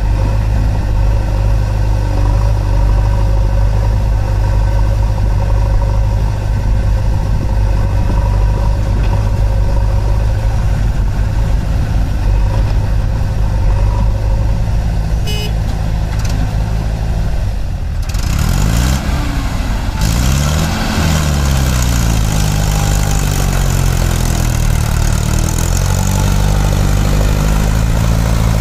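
Mahindra Arjun 555 DI tractor's four-cylinder diesel engine idling steadily, then from about two-thirds of the way in revving up and down as it pulls a fully loaded trolley away.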